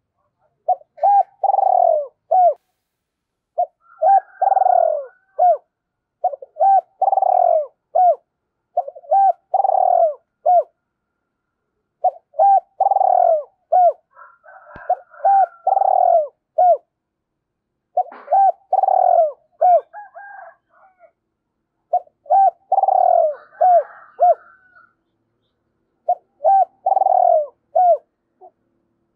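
Spotted dove cooing: a phrase of a few short coos around one longer, stronger coo, repeated about ten times with short pauses between.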